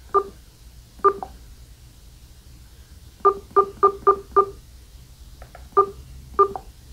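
Sonim XP5S rugged phone beeping with each press of its navigation keys: short, identical beeps, two single ones, then a quick run of five, then two more.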